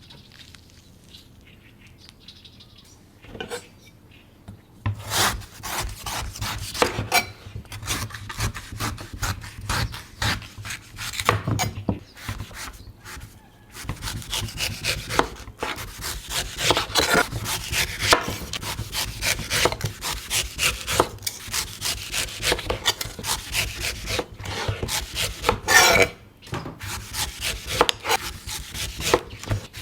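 A knife cutting into a coconut: a quiet start with a single knock a few seconds in, then from about five seconds a quick, uneven run of chopping strokes and scraping cuts.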